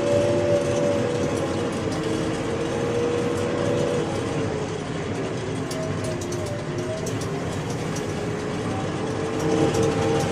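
JCB 3DX backhoe loader's diesel engine and drivetrain running while it drives, heard from inside the closed cab with the air conditioning on: a steady drone with a held whine whose pitch shifts slightly as engine speed changes, and light rattles over the bumps.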